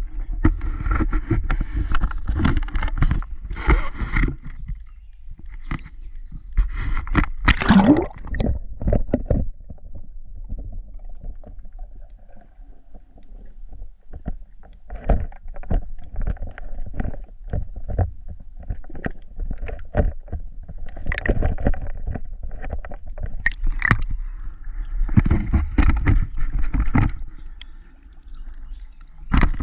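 Lake water gurgling and sloshing around an action camera dipped below the surface, muffled, with irregular knocks and splashes throughout.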